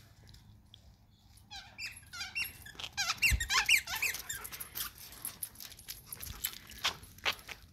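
A husky chomping on a plush squeaky toy with a rubber chicken head, setting off a quick run of short high squeaks that is loudest around three to four seconds in, with a few scattered squeaks near the end.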